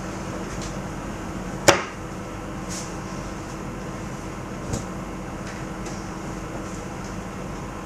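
Steady electrical or fan hum of room tone, broken by one sharp knock a little under two seconds in and a fainter knock near five seconds.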